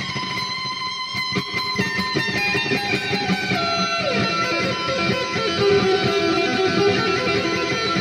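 Electric guitar being played: a run of picked notes, with one note gliding down in pitch about halfway through before the playing carries on.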